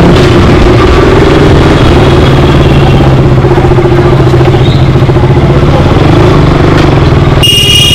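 Motorcycle engine running steadily while being ridden, with a short high-pitched beep near the end.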